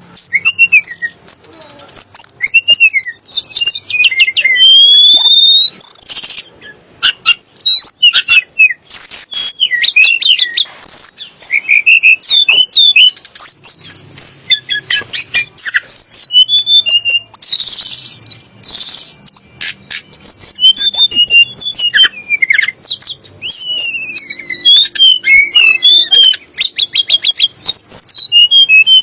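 Tledekan gunung singing: a continuous, varied stream of high whistles, slurred notes and quick trills that rise and fall, very loud.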